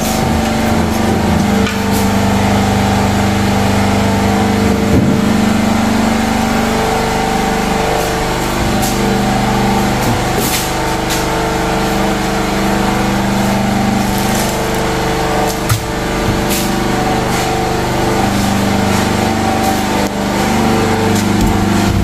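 Generator engine running steadily: a constant engine hum, with a few faint clicks over it.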